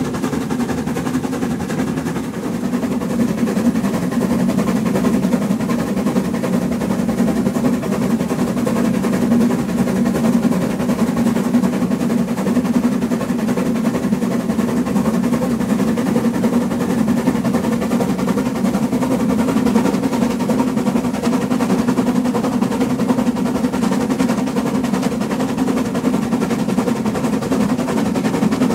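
HSB metre-gauge 2-10-2 tank steam locomotive 99 7245-6 running at speed, heard close up from the coach coupled behind it. It makes a steady, loud, fast clatter of exhaust beats and running gear over the wheel noise.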